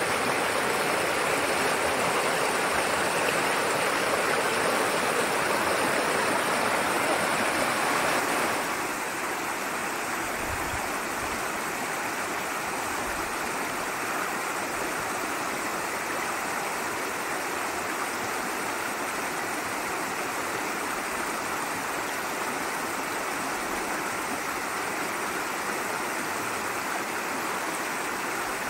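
River water rushing over a low rocky ledge and through shallow rapids: a steady, even rush. About eight seconds in it drops a little in level and sounds less full.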